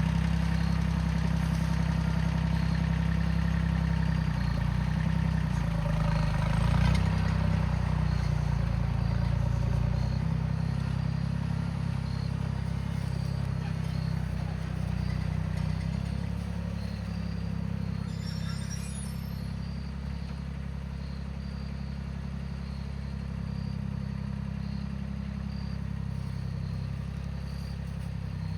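An engine running steadily, louder for the first ten seconds or so and then settling a little lower. There is a brief light rattle about nineteen seconds in.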